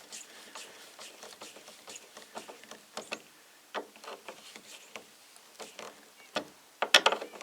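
Scattered small clicks and taps from hand work on a truck topper's sliding-window latch and its fittings, with a quick run of louder clicks near the end.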